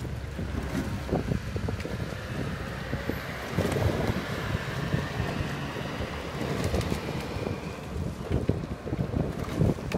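Wind buffeting the microphone, with a few light knocks and splashes from the oars of a double scull rowing past.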